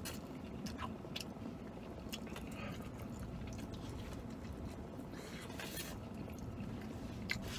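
A man biting into and chewing a chicken avocado burrito, with a few short wet mouth clicks over a faint steady low background rumble.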